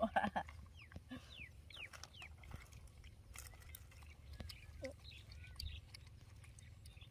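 Faint outdoor ambience: a steady low rumble like wind on the microphone, with a few short, high chirps falling in pitch one to two and a half seconds in, and small scattered clicks as longan fruit are handled and peeled.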